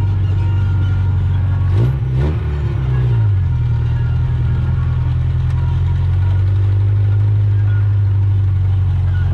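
Car engine running with a steady low drone; about two seconds in its pitch briefly dips and rises, then settles back.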